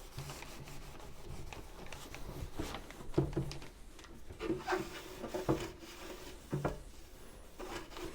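A cloth wiping and scrubbing the plastic case of a sewing machine with spray cleaner, in irregular rubbing strokes.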